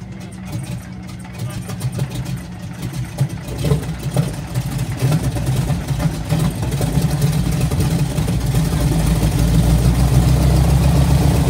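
T-6 Texan's Pratt & Whitney R-1340 nine-cylinder radial engine starting up: uneven, spluttering firing at first, then running more steadily and growing louder from about four seconds in.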